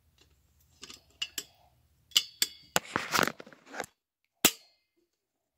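Fire alarm pull station being handled: a series of sharp plastic-and-metal clicks and knocks, some with a brief metallic ring, a short rattle about three seconds in, and a last sharp snap about four and a half seconds in.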